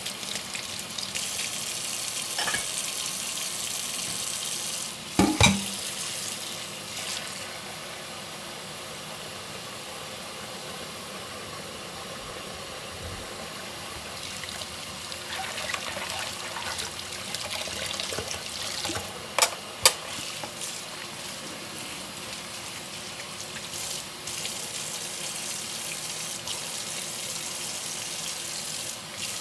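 Water running from a kitchen tap into a sink during hand dishwashing, a steady splashing rush. Dishes knock together sharply once a few seconds in and twice in quick succession about two-thirds of the way through.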